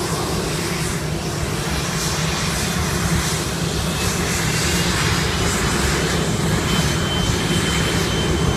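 McDonnell Douglas MD-83's two rear-mounted Pratt & Whitney JT8D turbofans running at the runway end, a steady jet rumble that slowly grows louder as they spool up for takeoff. A thin high whine comes in near the end.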